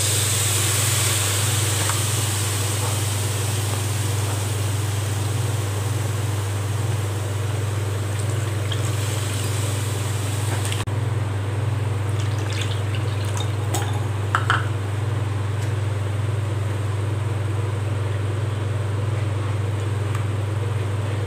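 Milk pouring into a hot nonstick pan of ghee-roasted semolina with a rushing hiss for about the first ten seconds, which stops abruptly. Then a wooden spatula stirs and scrapes the mixture with a few light knocks. A steady low hum runs underneath throughout.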